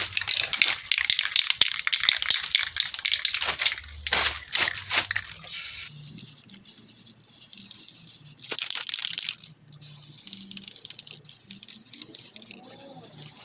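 Water sealer being sprayed onto wood, a hiss in short irregular bursts for about five seconds and then a steadier hiss.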